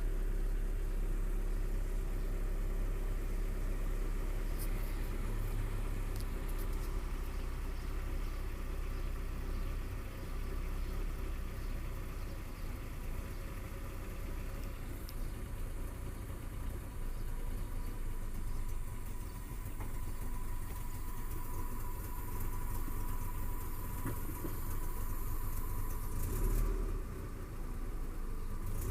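Honda Civic engine idling steadily. The owner reports that it loses power and pops, runs as if starved of fuel when cold, and suspects a spark plug problem.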